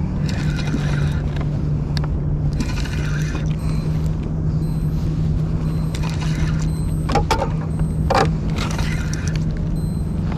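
A steady low mechanical hum runs throughout, with short bursts of rustling every couple of seconds. Two brief pitched squeaks come about seven and eight seconds in.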